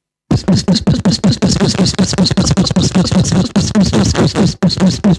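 Beatboxing: a fast, steady rhythm of short mouth-made drum and scratch strokes, about five a second, with a low hummed tone under them, starting a moment in.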